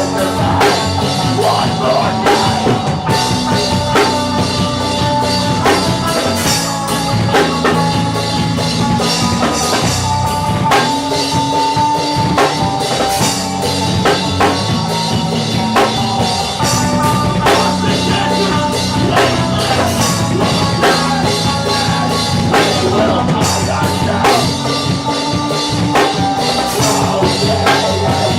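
Rock-style music with a drum kit keeping a steady beat under sustained instrumental lines.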